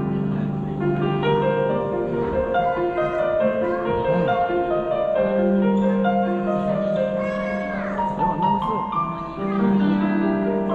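Piano music playing a slow melody of held notes over sustained low notes.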